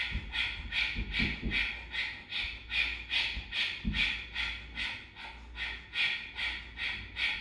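Kapalabhati fire breath: a woman's rapid, forceful exhalations through the nose, about two a second, each a short sharp puff with a passive inhale between.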